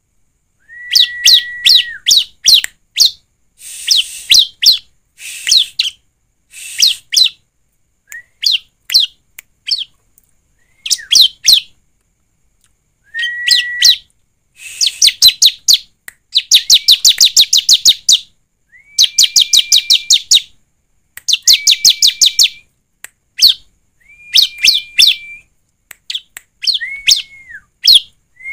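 Bar-winged prinia (ciblek) singing: repeated short phrases of rapid-fire high notes, many opening with a held, lower whistled note, with pauses between phrases. The longest, loudest run comes a little past halfway.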